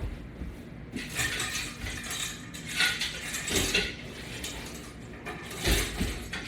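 Stainless steel exercise chains and metal latch-bar hardware rattling and clinking as they are handled, in a few short bursts.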